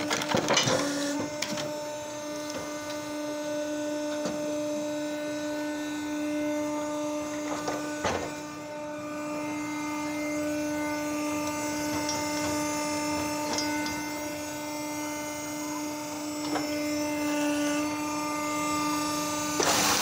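Electric motor and hydraulic pump of a homemade log splitter running with a steady hum, with a couple of brief knocks.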